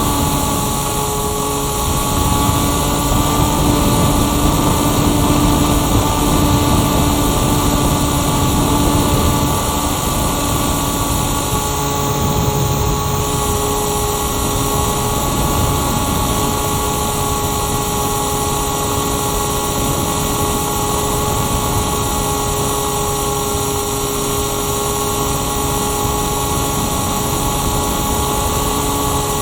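Firstar 2000 motor glider's motor and propeller running at a steady whine, heard from the camera on board, over a constant rush of air past the airframe.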